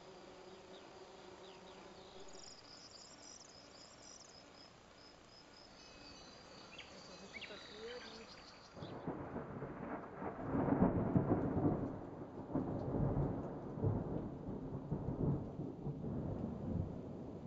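Faint birdsong chirps over a steady insect buzz in a meadow. About nine seconds in, gusty wind starts buffeting the microphone with a loud, uneven rumble that rises and falls.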